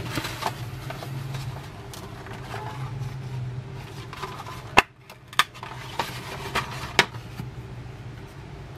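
Cardboard and plastic packaging handled by hand, rustling, with several sharp clicks and taps, the loudest just before the halfway point. A low steady hum runs underneath.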